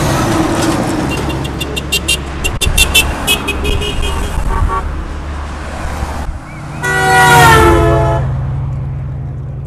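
Traffic passing close by, a heavy dump truck with trailer rumbling past, with horns honking: a quick run of short toots in the first half, then one long horn blast about seven seconds in, the loudest sound, that drops slightly in pitch as the vehicle goes by. The honking is drivers signalling support to the picketers.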